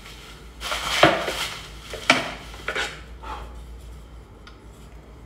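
Plastic bubble wrap rustling as a rifle barrel is pulled out of it. A sharp clack of hard parts knocking together comes about two seconds in, with a few lighter knocks after it, then quieter handling.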